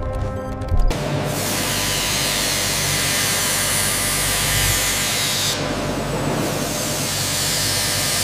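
Power tool grinding metal: a sudden, steady hissing, rasping noise that starts about a second in, over background music that carries on through it.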